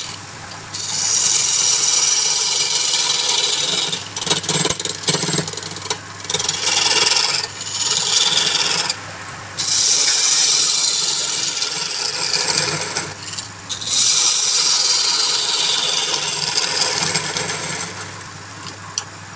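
Wood lathe motor humming steadily while a turning tool cuts the spinning wood, a loud hissing scrape in several passes with brief breaks as the tool comes off the work.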